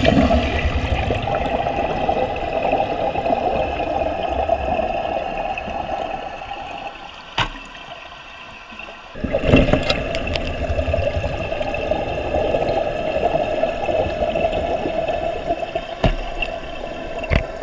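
Toilet tank draining through a dual-flush converter valve on a full flush, with steady water rushing. About seven seconds in a sharp click is heard as the valve's flapper drops and seals; the rush picks up again about two seconds later, and another sharp click comes near the end.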